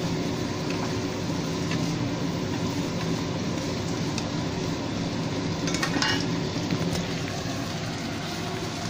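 A wooden spatula stirring chicken in simmering coconut-milk sauce in a wok-shaped pan, with a few knocks of the spatula against the pan, the clearest about six seconds in. A steady low hum runs underneath.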